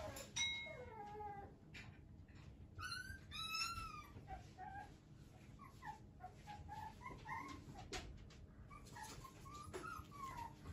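Shiba Inu puppy whining: a string of short, high, wavering whines that bend up and down in pitch.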